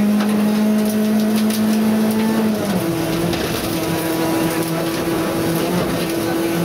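Rally car engine at high revs, heard from inside the cabin, holding a steady note, then dropping in pitch about two and a half seconds in and holding the lower note, over tyre and road noise.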